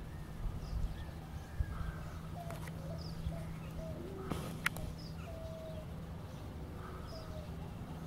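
Birds calling: scattered short high chirps, some falling in pitch, and a few brief lower notes, over a faint steady low hum. A single sharp click comes about halfway through.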